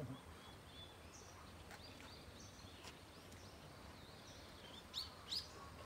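Faint outdoor ambience with small birds chirping: scattered soft chirps, then two louder quick upward chirps about five seconds in, over a low steady background rumble.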